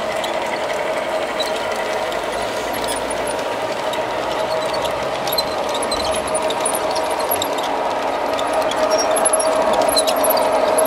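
LGB garden-scale model container train running on a curve: the locomotive's electric drive hums steadily, working hard, while the two-axle container wagons give many short, high wheel squeaks. It grows a little louder near the end as the train comes closer.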